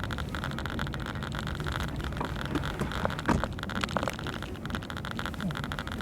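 Car on the move, heard from inside the cabin: steady engine and road noise, with a few short clicks about halfway through.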